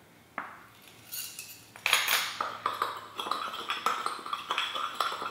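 A spoon stirring dry seasoning in a small ceramic bowl, clinking and scraping against the sides of the bowl about two to three times a second from about two seconds in. One light tap comes before the stirring starts.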